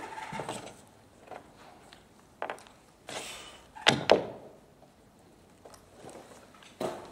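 A few scattered knocks and thuds, with a brief scraping noise about three seconds in, then the two loudest knocks in quick succession just after, and another knock near the end.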